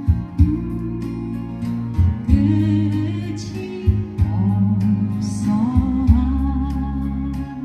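Live singer singing a Korean song to guitar accompaniment with a steady beat. The voice comes in about two seconds in.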